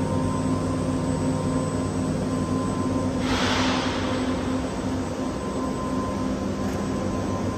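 UPGOAL UG-1325-4 four-spindle, four-rotary-axis CNC wood router running: a steady mechanical hum with several low tones and a thin, steady high whine. A brief hiss rises and fades about three seconds in.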